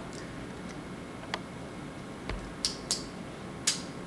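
Metal handcuffs clicking and clinking a few times as they are worked, with a dull thump a little after two seconds in.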